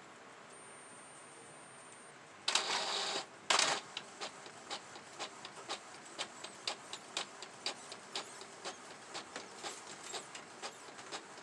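Epson ST-2000 EcoTank inkjet printer starting a print job. After a couple of seconds of quiet, two loud bursts of mechanism noise come about halfway through the first third, then a steady run of ticks, about three or four a second, as the page prints.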